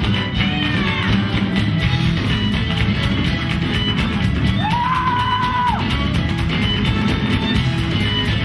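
Live folk-rock band music with electric guitar and drums, the players clapping along in time. A single held high note slides up and holds about halfway through.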